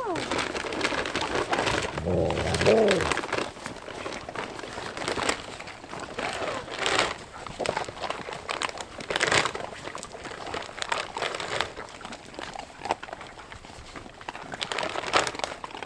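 A pack of Siberian huskies crowding round at feeding time: a few short whines and yips, one longer arched whine about two and a half seconds in, over a steady crunching and shuffling of paws in snow.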